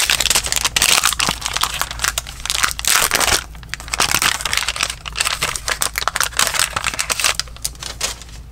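Crinkling and rustling of a trading-card pack wrapper and cards being handled, with a rapid run of small clicks and ticks as the cards are shuffled through. It is densest for the first three seconds or so, then thins to lighter, scattered ticking.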